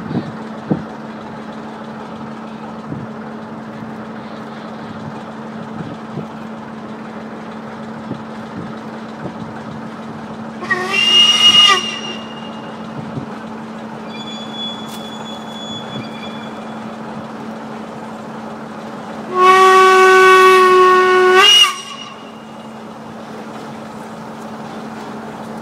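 Steam whistle of ČSD steam locomotive 464.202 blowing twice as it starts its train: a short blast about eleven seconds in and a longer blast of about two seconds near twenty seconds. A steady low hum runs underneath.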